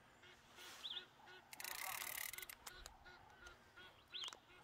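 Faint geese honking in a steady run of short calls, about three a second. A few light clicks and two brief high chirps, about a second in and near the end, sit on top.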